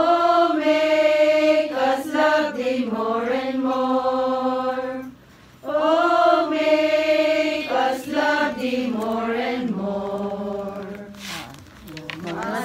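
A small group of voices singing a devotional hymn together in long held phrases, with a short break for breath about five seconds in and another near the end.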